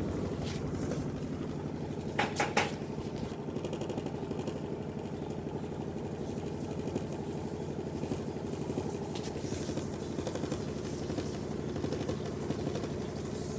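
Washing machine running with a steady motor drone and a fine rapid churning rhythm, with three quick sharp knocks about two seconds in.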